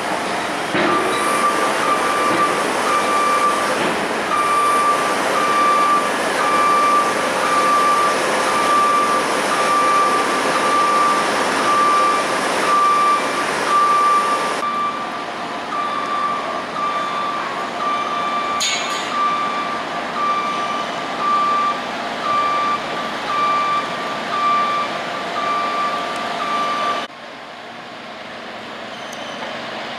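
Backup alarm of a construction vehicle beeping in an even, repeating rhythm over the noise of heavy machinery, stopping abruptly near the end.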